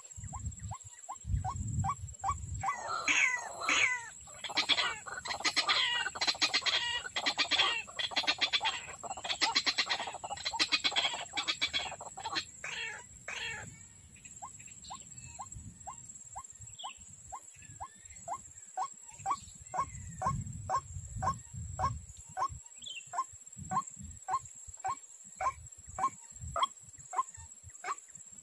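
White-breasted waterhen calling: a loud, harsh run of croaking calls for about ten seconds, then a steady series of short single notes, about one and a half a second.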